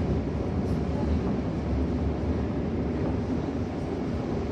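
Toei 5300 series subway train running, heard inside the passenger car: a steady low rumble of wheels and motors in the tunnel, with no change in speed.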